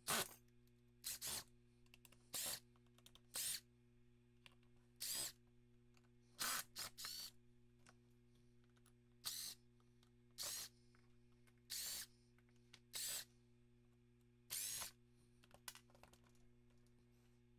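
Ridgid cordless driver running in about fourteen short bursts of roughly half a second each, backing screws out of a chainsaw's plastic clamshell housing.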